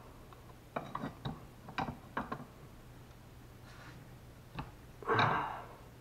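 Light metallic clicks and knocks from handling a small bench vise and a thin steel hood latch, a quick cluster in the first half and one more click past the middle. Near the end comes a short breathy rush, the loudest sound.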